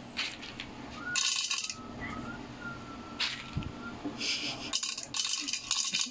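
Roasted coffee beans rattling and clattering as they are handled by hand, in several short bursts.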